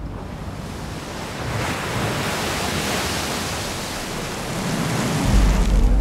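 Rushing sea and wind noise that swells about a second and a half in and eases off again, with a deep low rumble rising near the end.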